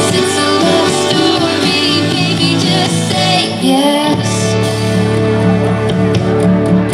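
Pop song playing, with singing and guitar over a steady bass line that changes about four seconds in.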